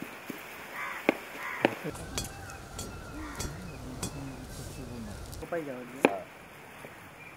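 Kitchen knife chopping on a wooden cutting board: sharp knocks about a second in and again near the end. In the middle, a few seconds of low rumbling noise with fainter clicks and short wavering calls.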